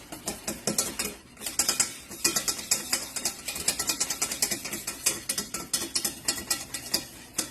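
A pot of evaporated milk thickened with cornstarch being stirred fast on the heat, the utensil clicking and scraping against the pot about six or seven times a second to keep the sauce from sticking to the bottom.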